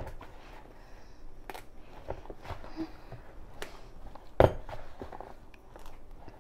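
Hands kneading a stiff mandazi dough in a plastic bowl: scattered soft knocks and rubbing, with one louder thump about four and a half seconds in.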